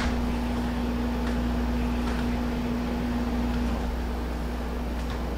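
Steady hum of a running machine, with a humming tone that drops out about two-thirds of the way through, and a few faint light clicks.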